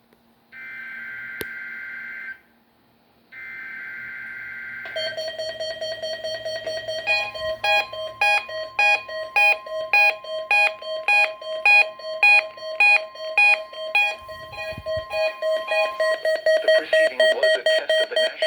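Two bursts of the NOAA Weather Radio SAME digital header, each a buzzy two-pitch data tone about two seconds long, marking a Required Weekly Test. Then weather-alert receivers start a fast, even electronic alarm beeping. About two seconds later the steady 1050 Hz warning alarm tone joins under the beeping and holds for about nine seconds.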